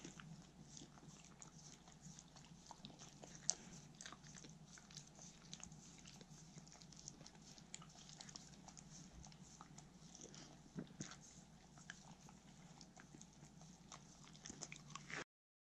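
Two Pembroke Welsh corgis faintly crunching and chewing apple pieces and licking the hands that feed them: many small scattered crunches and wet clicks, with one sharper crunch about three and a half seconds in. The sound stops abruptly near the end.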